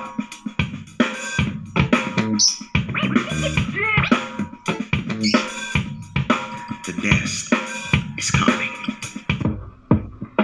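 Music with a drum-kit beat playing through an Awei Y371 Bluetooth speaker.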